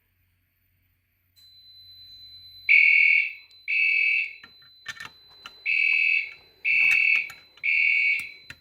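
Fire alarm horns sounding in a temporal-three evacuation pattern, starting a few seconds in: two short blasts, a pause, then three more, with a steady high-pitched tone underneath. The system is in alarm after a pull station has been activated.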